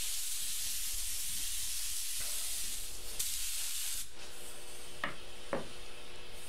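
Spray adhesive being sprayed in a steady hiss that stops about four seconds in.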